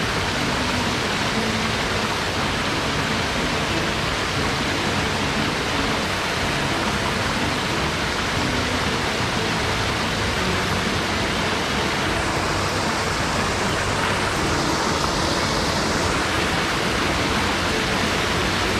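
Mountain headwater stream rushing over rocks and cascades: a steady, even roar of water.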